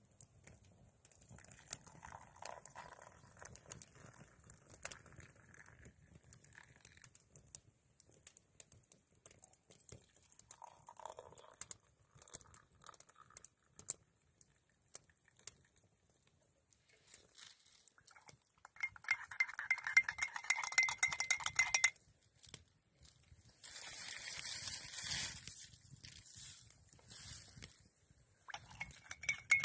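Quiet clatter of a blackened tin can and mugs as tea is poured from the can. About two-thirds of the way in, a spoon clinks rapidly against the inside of a mug for a few seconds while the tea is stirred, and more clinking and clatter follow near the end.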